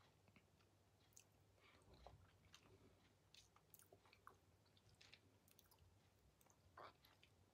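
Near silence: faint room tone with a steady low hum and scattered soft clicks.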